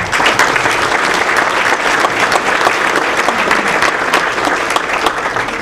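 Audience applauding: dense clapping that starts at once and dies away near the end.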